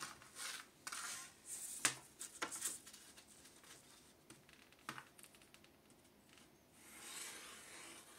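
Faint handling sounds of a thin wooden batten and drawing tools on paper over a desk: several light clicks and taps in the first half, then soft scraping and rustling near the end as the batten is pressed and slid into place.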